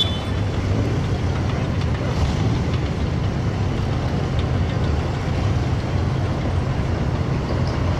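Engine of a tracked armoured fighting vehicle running steadily as the vehicle drives slowly past close by.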